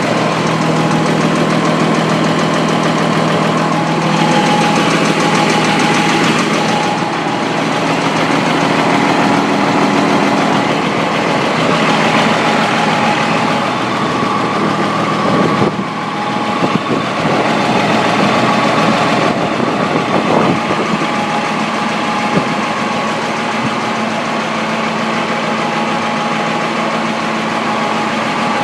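M35A2 army truck's multifuel inline-six engine running steadily with a knocking noise that the owner calls weird and has not yet identified.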